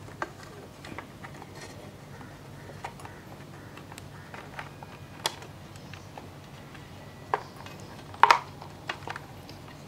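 Scattered light clicks and taps of a motorcycle's wiring and plastic parts being handled while a charging lead is routed, the loudest a short clatter about eight seconds in. A faint low hum runs underneath.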